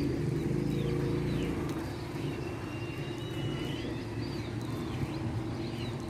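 A steady low mechanical drone, like a distant engine or traffic, easing off slightly about two seconds in, with faint short high chirps over it.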